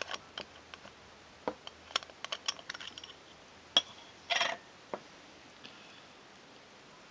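Pocket watch being handled: irregular small metal clicks and taps, a sharp click a little past the middle, then a brief scraping rustle.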